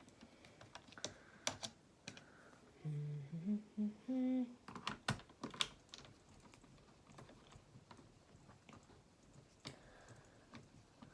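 Scattered small clicks and taps of a screwdriver and screws on a laptop's plastic case as it is unscrewed. About three seconds in, a person hums a few rising notes.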